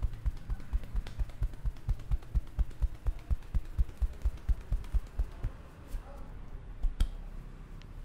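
Hands tapping rhythmically on the top of a man's head in a barber's head massage: dull thumps about five a second that thin out and stop about five seconds in. Softer hair rubbing follows, with one sharp click near the end.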